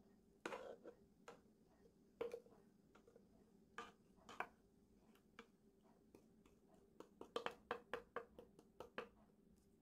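Wooden spatula scraping thick kabocha-and-egg batter out of a blender jar into a ceramic bowl: faint scrapes and scattered knocks, with a quick run of taps, about four a second, near the end.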